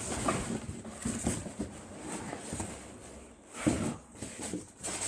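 Rummaging through a box of packing and used metal door closers: irregular rustling, scraping and small knocks, with a louder short sound a little over three and a half seconds in.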